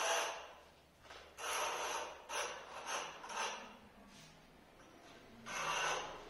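A small hand tool rubbed along the edge of a granite strip in a series of short scraping strokes: a few at the start, a quick run in the middle, and another near the end.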